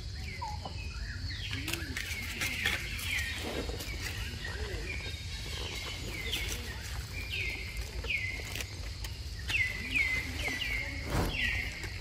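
Birds calling: a run of short, falling chirps that come thicker and faster in the second half, over a steady low rumble.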